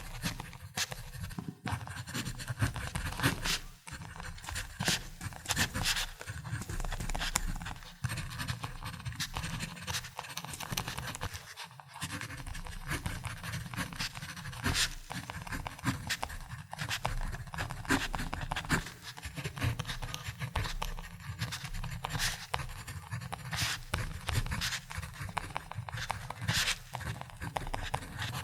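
Ballpoint pen writing: a steady scratching of pen strokes, with many short ticks.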